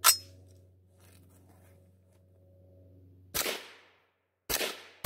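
A sharp metallic clack from the 12.5-inch AR-10 pistol in .308 being worked by hand after a jam. Then, after a few seconds, it fires again: two shots about a second apart, with a third starting right at the end.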